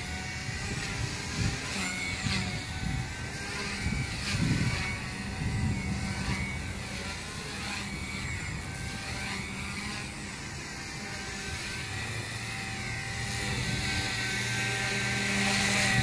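Align T-Rex 150 electric RC helicopter flying, its motor and rotor whine rising and falling in pitch as it manoeuvres, louder near the end as it comes close. Wind buffets the microphone underneath.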